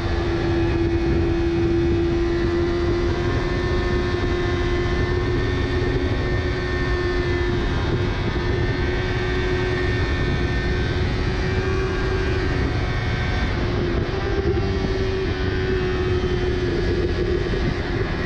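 2019 Yamaha R3's parallel-twin engine pulling at high revs at road speed, its steady tone rising and falling slightly through the bends, over heavy wind rush on the microphone.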